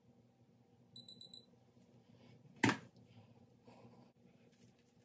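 CHI Spin 'n' Curl automatic curler's timer beeping, a quick run of about five short high beeps about a second in, signalling that the curl is done. A sharp click follows a moment later, with faint handling noise around it.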